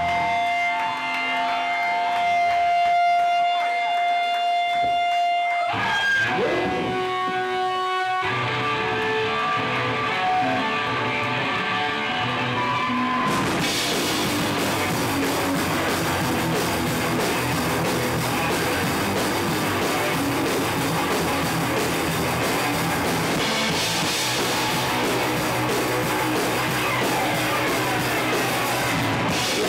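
Live rock band on electric guitars: held, ringing guitar tones at first, then riffing, and about thirteen seconds in the whole band comes in and the sound gets much fuller and denser.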